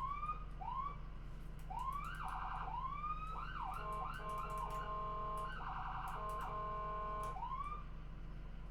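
Ambulance siren cycling through its patterns: short rising whoops repeated, fast warbling bursts, and two long steady multi-tone blasts in the middle, over a constant low drone of the moving vehicle.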